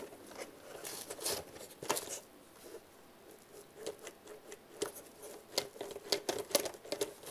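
Faint, irregular clicks and rustles of fingers handling the plastic body of a small RC crawler truck.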